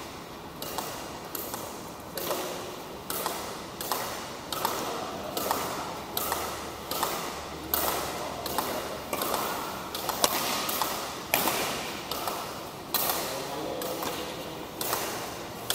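Badminton rackets striking a shuttlecock in a long rally: sharp pings about every two-thirds of a second, echoing in a large hall.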